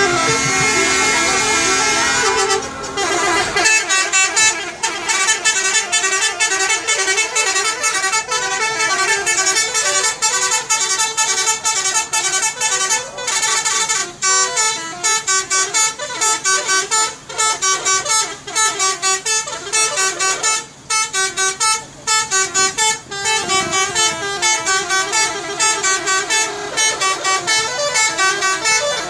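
Indonesian 'telolet' bus horn, a multi-tone musical horn, playing a tune. It holds one chord for about three seconds, then plays a long, fast run of short notes that jump between pitches.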